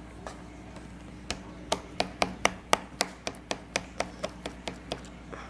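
Fingers working a sticky white slime mixture in a plastic bowl, making quick sharp clicks about three times a second that start about a second in.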